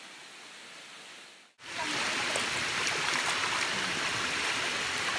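Rushing stream water pouring over a small concrete weir. About a second and a half in it becomes suddenly much louder and closer: running water splashing over hands and a skull as bones are washed in the flowing stream.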